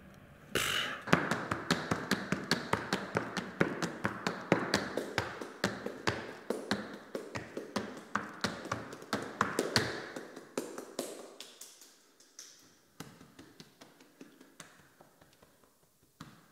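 Tap shoes striking a studio floor in a fast, rhythmic run of taps, starting sharply about half a second in and dense for about ten seconds before thinning out. Quieter, scattered strikes follow near the end, with hand slaps on the chest as body percussion.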